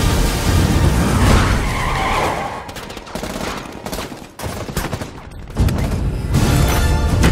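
Film action sound effects: rapid gunfire with a car's tyres skidding. It is loudest for the first two seconds or so and again from about five and a half seconds in, with a quieter stretch in between broken by single sharp cracks.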